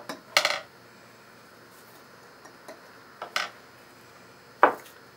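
Short knocks and clinks of a plastic funnel and glassware being set down and handled on a plastic-sheeted table, four separate taps with the loudest about half a second in.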